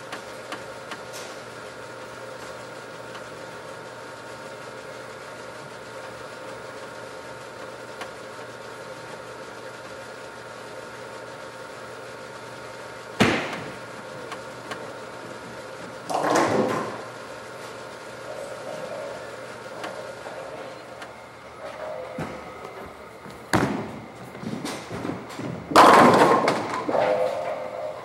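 Bowling alley ambience: the ball return's steady mechanical hum, broken by several sudden bangs and clattering crashes of balls and pins. The loudest and longest crash comes about two seconds before the end.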